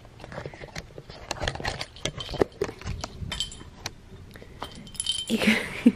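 A cat wand toy's plastic ball rattling and clicking as it is swung and knocked about, with a bell-like tinkle near the end. A louder burst of rustling and jingling comes just before the end.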